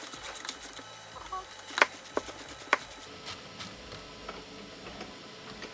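Socket ratchet clicking in quick runs as the bolt on the 12V battery's hold-down bracket is loosened, with a few sharper clicks about two seconds in. The clicking thins out after about three seconds.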